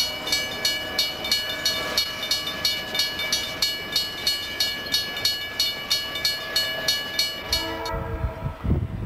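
Railroad grade crossing bell ringing steadily, about three strokes a second, while freight cars roll past. It stops abruptly near the end, giving way to a low rumble.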